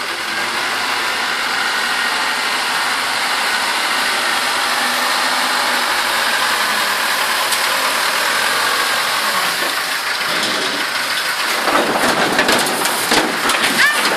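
Case 580 Super M backhoe loader's diesel engine running steadily under load as it lifts a bucket of broken pavement and rock. Near the end it grows louder and rougher, with sharp clatters as the load starts tipping into the steel bed of a dump truck.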